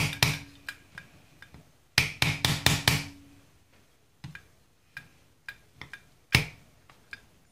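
Sharp metal taps and clicks from a Holley four-barrel carburetor body being worked on during disassembly. There is a quick run of taps at the start and a denser run about two seconds in, each with a faint ring, then a few single knocks, the loudest about six seconds in.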